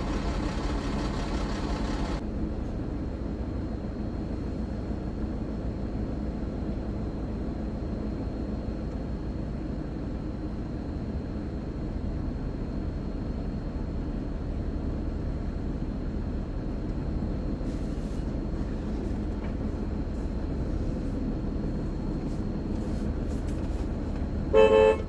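Steady low rumble of a running vehicle engine, with one short car-horn toot near the end.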